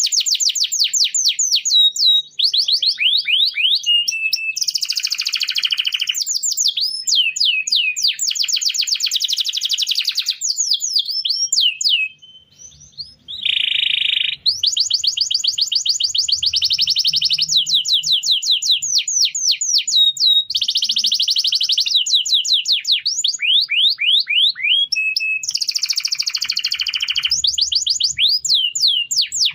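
Domestic canary singing a long run of fast trills: rapid series of sweeping notes alternating with dense rolling phrases, with a short break about twelve seconds in.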